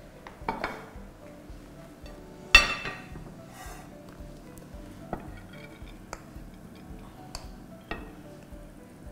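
Cookware handled on a gas hob: one sharp metal clank about two and a half seconds in, then a few lighter clicks and knocks, as a pot of freshly cooked rice is taken off the burner and tipped out onto a plate. Soft background music under it.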